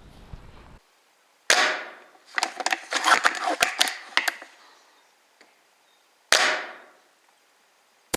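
Airsoft gun shots: a sharp crack about a second and a half in that trails off, a quick run of clicks and snaps, then a second crack near the end.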